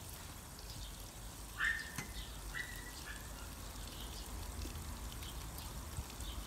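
A few short bird calls, each sliding down in pitch to a brief held note, the first and loudest about a second and a half in. Under them are faint high chirping and a low steady rumble.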